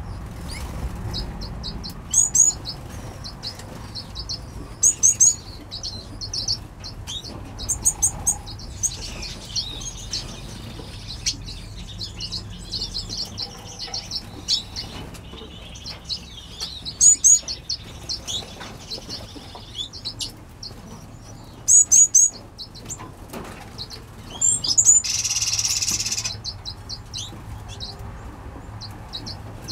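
Mixed aviary finches chirping and calling: clusters of short, high chirps every few seconds over softer twittering, with a brief rushing hiss about 25 seconds in.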